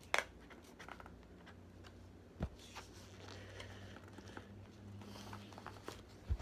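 Handling a tablet's retail box while trying to open it: a sharp click right at the start, scattered small clicks and scrapes, and two dull thumps, one about two and a half seconds in and one near the end, over a low steady hum.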